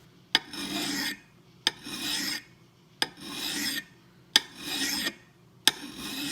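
Steel hand file drawn across an axe's edge in slow, even strokes, raising a micro bevel. There are five rasping strokes about every 1.3 seconds, each starting with a sharp click as the file meets the steel.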